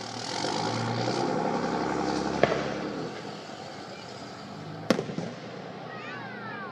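Aerial firework shells bursting overhead: two sharp bangs about two and a half seconds apart, the second followed by a short rattle of smaller cracks.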